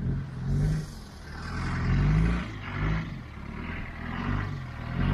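Off-road vehicle engine driven along a dirt trail, its revs rising and falling in uneven swells.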